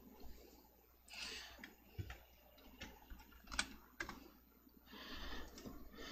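Faint, scattered clicks and taps of a computer keyboard and mouse, with a few soft hissy swells between them.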